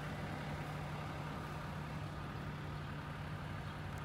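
Engine running steadily with an even low hum, no rise or fall in pitch.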